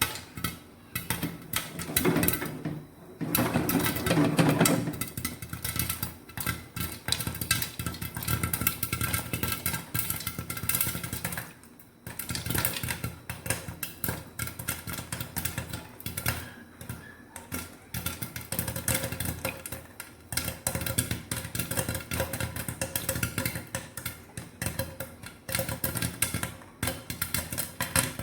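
Popcorn kernels popping in hot coconut oil in a lidded pan: a dense, irregular crackle of rapid pops, loudest a few seconds in.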